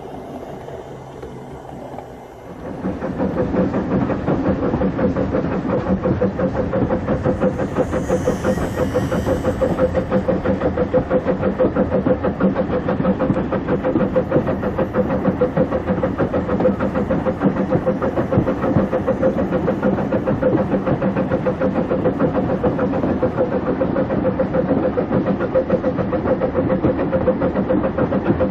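00 gauge model locomotive running on the layout track: a steady motor whine with the fine rattle of wheels on rail, starting about two and a half seconds in.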